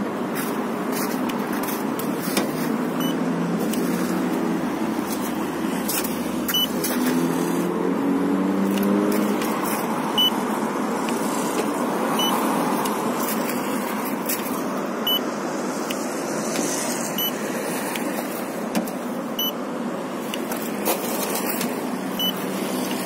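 Steady car noise, a motor vehicle running close by, with a short rising engine note about seven seconds in.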